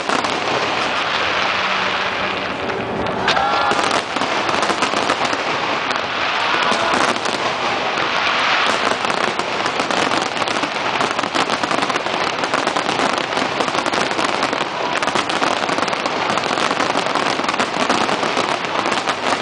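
A dense fireworks barrage: many aerial shells bursting in quick succession, heard as a continuous crackling with no let-up.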